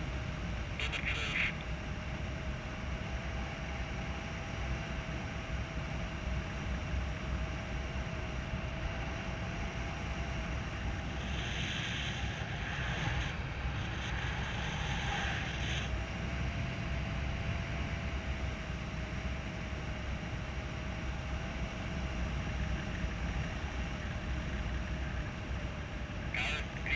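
Airflow buffeting the microphone of a camera on a paraglider in flight: a steady low rumbling rush, with brief rustles about halfway through and a faint steady tone underneath.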